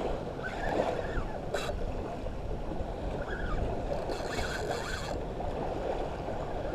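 Steady wash of water and wind on the microphone, with a few faint clicks and a brief hiss about four seconds in.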